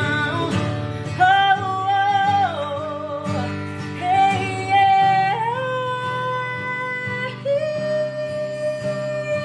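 Music: a voice singing long held notes that glide from one pitch to the next, over plucked guitar.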